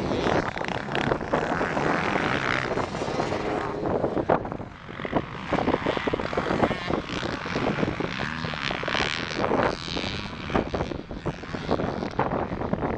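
Motocross bikes' engines running on a dirt track, the engine note rising and falling as the riders rev through the gears.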